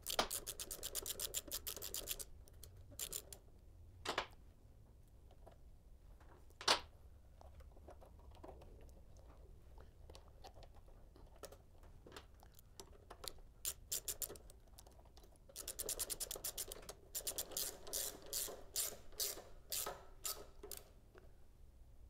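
Socket ratchet wrench clicking in quick runs as a bolt is turned, fastening a ground wire at the starter solenoid mount of a small engine. One run at the start and a longer broken run from about two-thirds of the way through, with a few single clicks and knocks in between.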